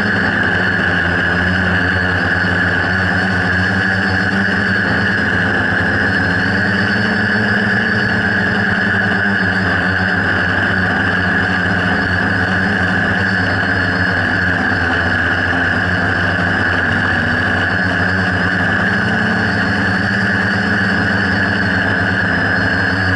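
Quadcopter's electric motors and propellers whirring steadily, heard close up from the camera mounted on the quad, with a strong high steady whine over a lower hum.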